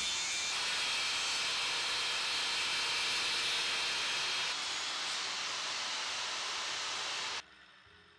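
Corded circular saw running steadily in a tenon jig, a loud even hissing noise, that cuts off abruptly near the end, leaving faint background music.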